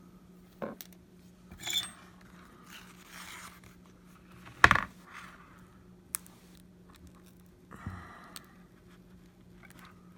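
Plastic picks and pry tools scraping and clicking against an iPad mini's glass and frame as the glued screen is pried up, with one sharp click about halfway through. A steady low hum runs underneath.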